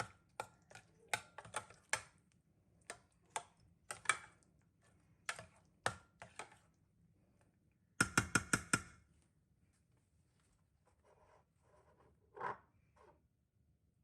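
Light, sharp clicks and knocks of hard objects being handled, at an uneven pace. About eight seconds in comes a quick run of about six, then only a few faint knocks.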